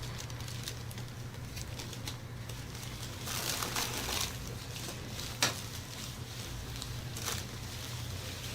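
Rustling movement over a steady low hum, with a single sharp pop about five seconds in.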